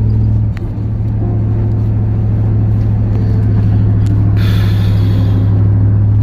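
Cammed GM V8 pickup running steadily while driving, heard from inside the cab as a deep, steady exhaust drone. A brief hiss comes in about four seconds in.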